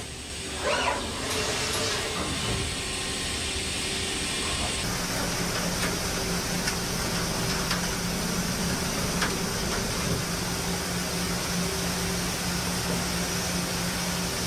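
Mazak Variaxis i-700 five-axis machining centre drilling a 32 mm hole at 1,400 rpm: a steady hiss over a steady low hum. The hiss and hum grow fuller about five seconds in, as the drill cuts.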